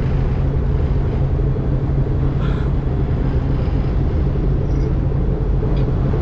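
Small fishing boat's engine running steadily under way while trolling, a constant low drone with water and wind noise over it.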